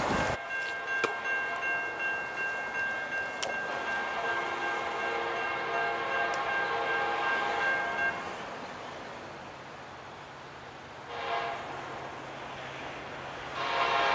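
Air horn of an approaching diesel locomotive, out of sight, sounding a chord of several steady tones. It gives a long blast of about eight seconds, a short blast about eleven seconds in, and another long blast starting near the end, the long-long-short-long pattern of a grade-crossing signal.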